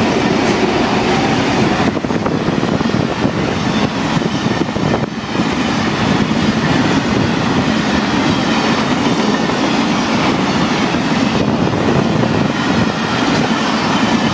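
Empty rock hopper wagons of a freight train rolling past close by, a steady loud rumble and clatter of wheels on the rails, with the trailing diesel locomotive of the pair just passing at the start.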